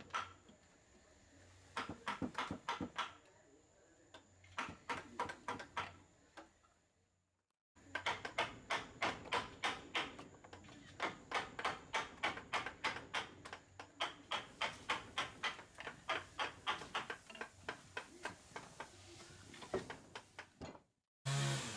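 Steel chisel driven into a hardwood block by mallet blows, a quick run of sharp taps about three a second with short pauses between runs. It breaks off briefly a third of the way in and again near the end, then comes back louder.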